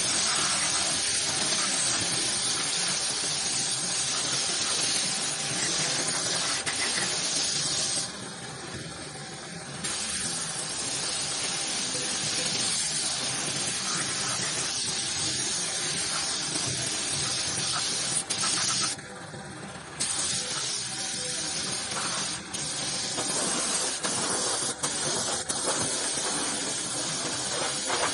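Compressed-air paint spray gun hissing as it sprays black paint, in long bursts with short breaks about eight and nineteen seconds in.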